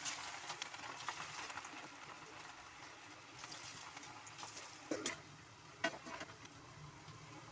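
Battered cauliflower pakoda deep-frying in hot oil, a steady sizzle and crackle, with two sharper clicks about five and six seconds in.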